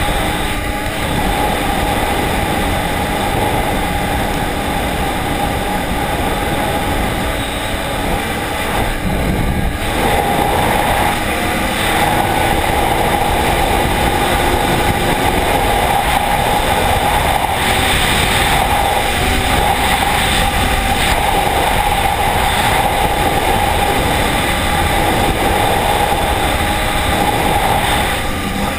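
Arctic Cat ZR 4000 RR snowmobile running steadily at speed across lake ice, heard from the rider's seat: engine and studded track make a loud continuous drone with a steady whine on top.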